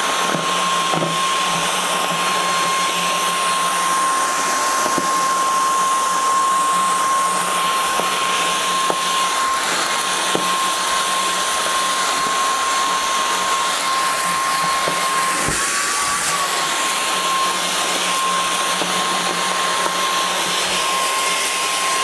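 INSE S610 cordless stick vacuum running on its high setting: a steady motor whine over the hiss of rushing air, with a few light clicks as it works through rabbit hair, hay and bedding on carpet.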